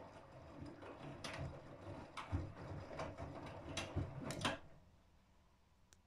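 Whirlpool FSCR90425 front-loading washing machine tumbling a wet wash load: water splashing and the laundry dropping with soft thuds, several times over a few seconds. The sound stops short about three-quarters of the way in as the drum comes to rest.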